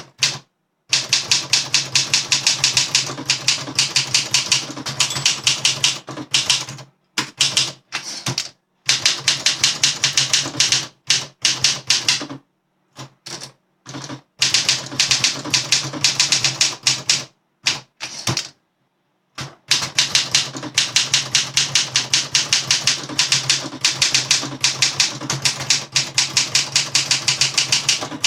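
Freshly overhauled 1961 Olympia SM7 manual typewriter being typed on: rapid runs of key strikes lasting several seconds at a time, broken by short pauses.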